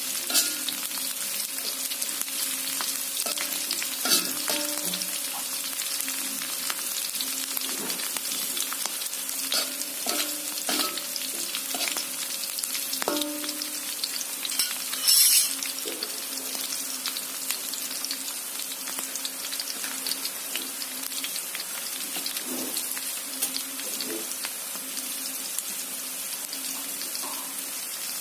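Shallots and chilies sizzling in hot oil, stirred with a spatula that clicks and scrapes against the pan now and then, over a faint steady hum. A brief louder burst of sizzle comes about halfway through.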